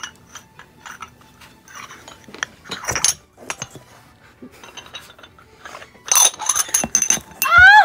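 Small plastic toy dishes being handled and set down: a string of light clicks and clinks, with the busiest, brightest clinking about six seconds in. Just before the end a high voice starts, rising in pitch.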